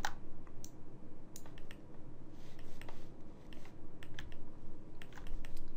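Irregular clicks of a computer keyboard and mouse, a few a second, over a faint steady hum.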